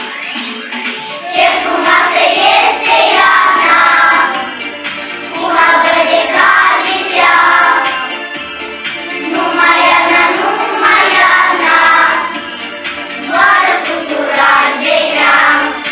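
A group of young children singing a song together in unison over a backing track, in phrases of a few seconds with short breaks between them.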